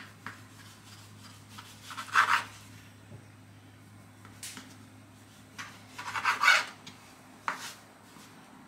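Kitchen knife cutting through bread dough and scraping on a wooden cutting board: a sharp tap at the start, then a few short rasping strokes, the loudest about two seconds in and about six and a half seconds in.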